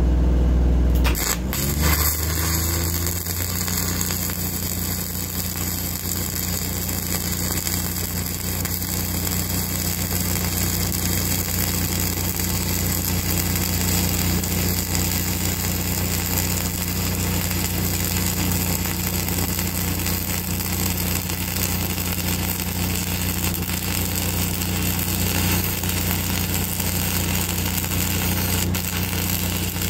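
Self-shielded flux-core arc welding with Lincoln Innershield NR-233 5/64-inch wire: the arc strikes about a second in and burns as a steady loud hiss. Underneath, an engine hums steadily and picks up speed as the arc strikes.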